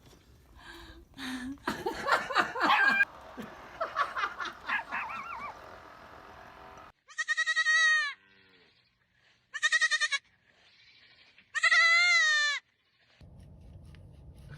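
An animal bleating three times, each call about a second long with a wavering, quavering pitch. Before the bleats come a few seconds of shorter mixed calls and clatter.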